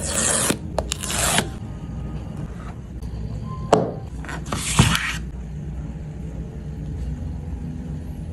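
Phone box packaging being handled: short scraping rubs at the start, about a second in and near five seconds, with a couple of light knocks between them, then a low steady hum.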